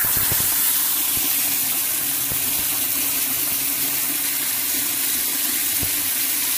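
Water running steadily into a chicken waterer, topping up its low water level; the rushing hiss starts suddenly and carries on without a break.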